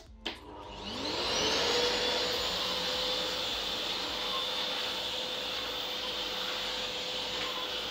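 Samsung Air Track bagless canister vacuum cleaner switched on with a click. Its motor spins up in a rising whine over about a second, then runs steadily as the floor brush is pushed over a tiled floor.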